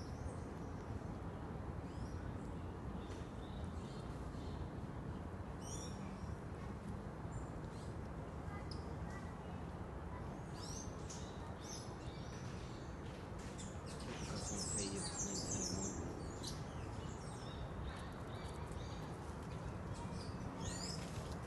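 Forest ambience with scattered high-pitched chirps and calls, busiest and loudest about two-thirds of the way through, over a steady low background hiss.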